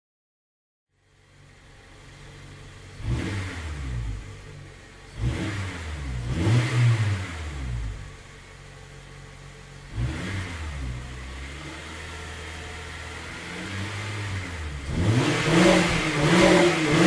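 Car engine revving: after about a second of silence it blips several times, each rev rising and falling in pitch, settles briefly, then climbs near the end into a loud, held high rev.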